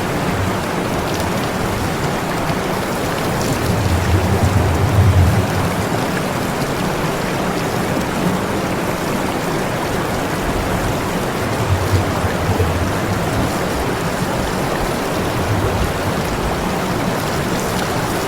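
Steady hiss of water spraying, with a low hum that swells now and then.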